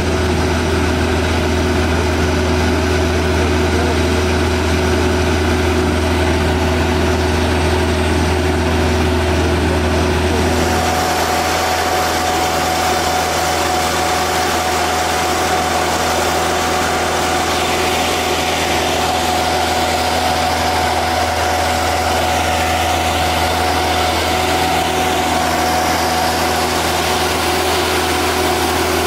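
Diesel engine of an INOVA UNIVIB seismic vibrator truck running steadily. About eleven seconds in, the sound changes: the strong low drone drops away and a steady higher whine comes in.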